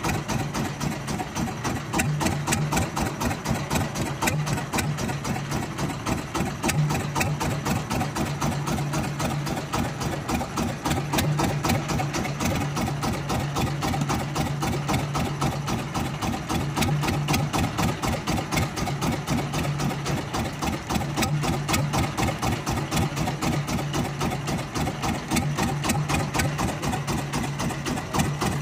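A fishing boat's engine idling with a fast, even chugging and a low hum that swells and fades.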